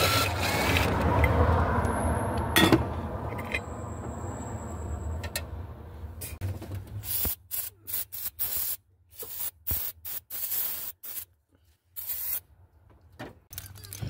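A cordless impact driver runs as the air cleaner's wing nut is spun off, with a sharp clack a few seconds in. After that, an aerosol can of starter fluid is sprayed into the carburetor in a dozen or so short spurts. This is the starter-fluid test on a carbureted V8 that cranks but won't start, meant to show whether the fuel pump is failing.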